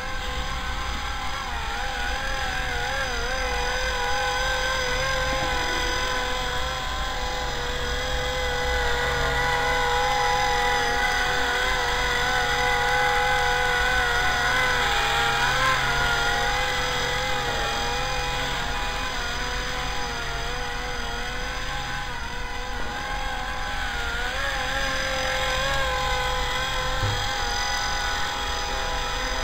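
Esky Honey Bee CT electric RC helicopter in flight, its motor and rotor whining steadily, the pitch wavering up and down with the throttle.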